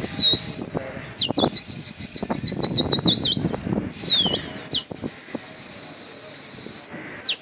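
Loud human whistling of a pigeon flyer signalling his flock: a dip-and-rise whistle, then a warbling trill of about four to five wobbles a second, a short falling glide, a long held whistle that sags slightly in pitch, and quick short whistles right at the end.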